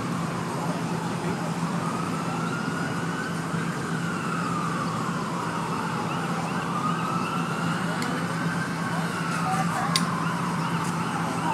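Emergency-vehicle siren in a slow wail, rising and falling in pitch twice, over a steady low hum.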